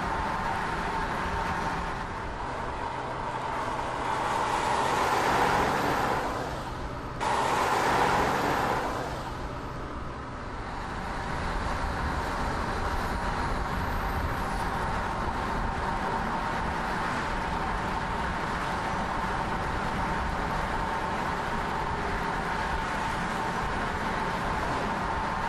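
Road noise of a car driving at speed: a steady rush of tyres and wind. It swells louder for a few seconds near the middle, with a sudden break about seven seconds in, then settles back to an even level.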